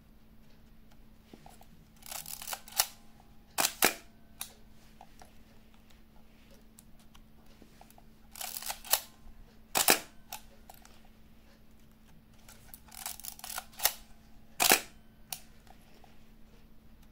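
Kowaflex Model E 35 mm SLR camera being wound and fired three times. Each time a short rasping stroke of the film-advance lever is followed about a second later by a sharp double clack of the shutter and mirror.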